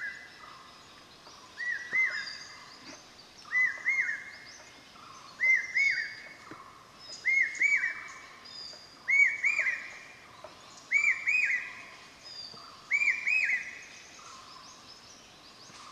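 A bird calling over and over in the forest: a short phrase of two or three quick arched whistled notes, repeated about every two seconds, eight times, with fainter higher-pitched chirps from other birds over a steady background hiss.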